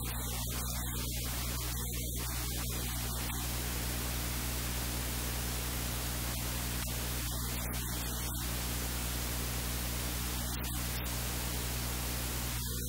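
Steady hiss of recording noise with a low electrical mains hum beneath it; no other sound stands out.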